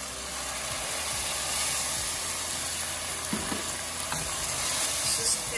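Meat stock poured into a hot pot of fried tomato puree, sizzling, the hiss growing over the first second or two, while a plastic spoon stirs it with a few soft knocks against the pot.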